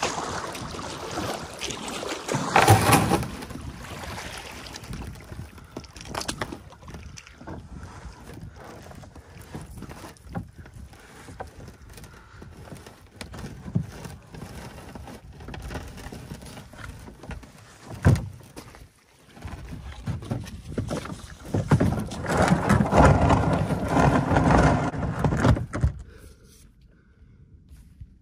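Kayak being paddled: paddle splashes and water washing against the hull, uneven, with louder stretches about two seconds in and again near the end, and a single sharp knock a little past the middle.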